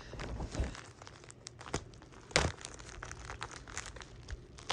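A package being wrestled open by hand, its wrapping crinkling and tearing in a run of sharp crackles, with the loudest snap about two and a half seconds in.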